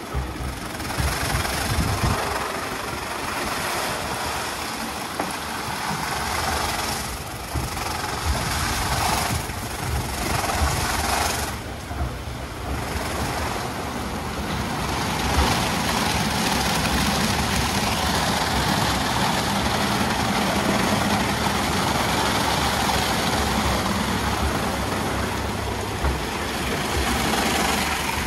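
WashTec SoftCare Bravo rollover car wash running through its wash program: steady machine and water noise with a pulsing low rumble, getting louder and steadier about halfway through.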